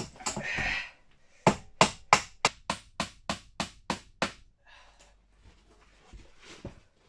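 Hammer nailing old wooden boards back into place: about ten quick strikes, roughly three a second, after a short scrape, followed by fainter knocks.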